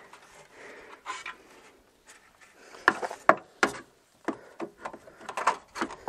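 Hands working a plastic wiring connector and its clip behind the truck's headlight: scattered sharp clicks and knocks, a few faint rubs, bunched in the second half.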